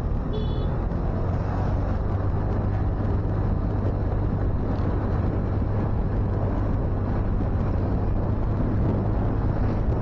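Motorcycle engine running steadily while riding, with wind and road noise; a brief high-pitched beep about half a second in.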